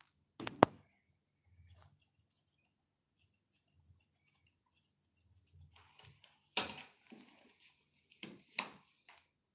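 Grooming scissors snipping through a toy poodle's curly coat in a quick run of light snips, several a second. A sharp click comes just after the start and a few louder knocks near the end, from the tools being handled.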